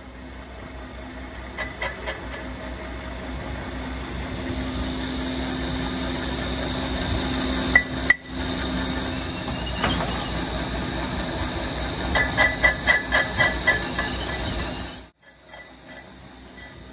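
A lathe-mounted grinding wheel grinding the face of a Fiat 480 tractor clutch plate: a steady hissing grind over a motor hum. There are two sharp knocks about eight seconds in and a run of rapid ticks, about five a second, a little after twelve seconds. The sound drops off suddenly about fifteen seconds in.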